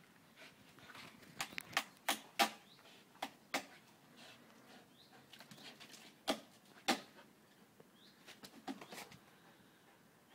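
A Belgian Malinois jumping up against a tree trunk and snatching at a cord hanging from the branches. About ten short, sharp clacks and rustles come in irregular clusters.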